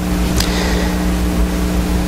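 A steady low electrical-sounding hum with hiss, starting abruptly and holding level, with one faint click about half a second in.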